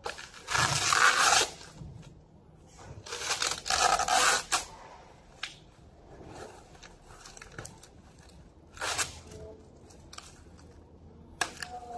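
Plastic bubble wrap and film being torn and pulled off a machine. There are three loud rips about a second, three seconds and nine seconds in, the first two each lasting about a second, with small crinkles between them.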